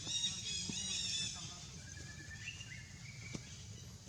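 A run of short, high-pitched animal calls, followed by a few longer calls that rise in pitch in steps, over a steady low hum.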